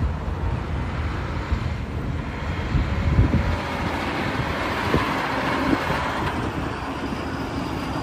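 Highway traffic noise: a loaded car-carrier tractor-trailer driving past, a steady rush of tyre and engine noise.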